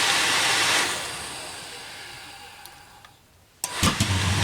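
Eberspacher D1L diesel heater's combustion-air blower hissing, then spinning down over about three seconds after the heater has flamed out. Near the end a sharp click and the heater's motor starts again with a steady low hum for a restart attempt.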